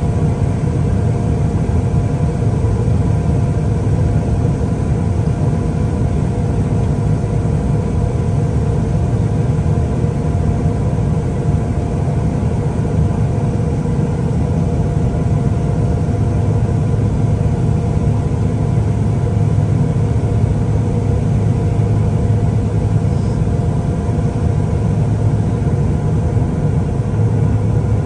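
Steady engine drone: a constant low rumble with a few fixed higher tones running over it, unchanging throughout.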